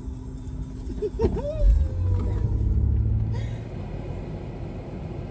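Low rumble of a car heard from inside the cabin, heavier for about two seconds from a little under two seconds in, then settling to a steady lower rumble.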